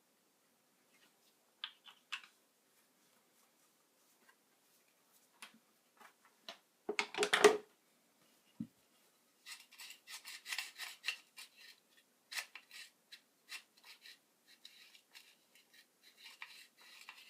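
Workbench handling noises: scattered light clicks, a loud short clatter about seven seconds in followed by a dull knock, then a long run of quick scraping and rubbing strokes.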